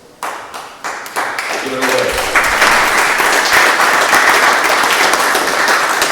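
Audience applauding: a few scattered claps at first, swelling about two seconds in into loud, steady applause. A brief voice is heard just before the applause fills out.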